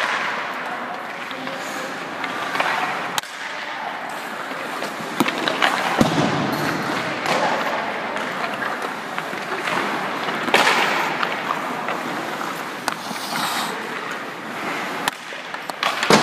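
Ice hockey skate blades scraping and carving on the ice during a goaltending drill, with several sharp clacks of stick and puck strikes.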